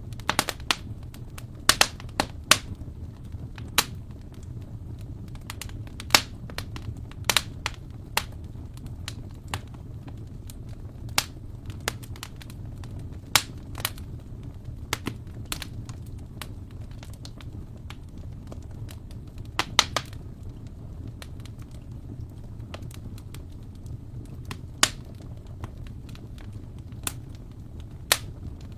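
Wood fire burning in an open fireplace, crackling: irregular sharp pops and snaps, some in quick clusters, over a steady low rumble of the flames.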